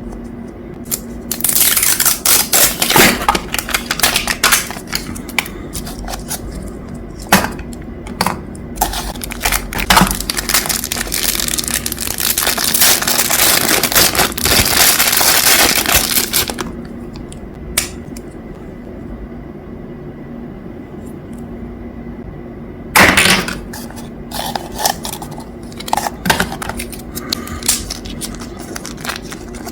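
Hard objects being handled: a dense run of clicks, clatter and scraping with a stretch of rushing noise, then quieter, a sharp knock about two-thirds of the way through, and scattered clicks after it.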